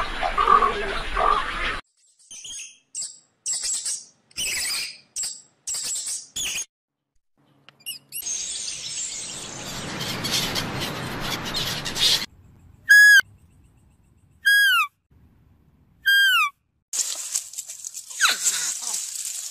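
Bird calls from several spliced clips: a few short high chirps, then a flock of gulls calling, then three loud falling calls about a second and a half apart.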